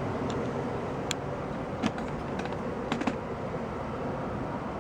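1994 Tempstar SP80 gas furnace running with its blower fan on, a steady rush of air, with a scatter of sharp ticks and clicks from the metal expanding as it heats up.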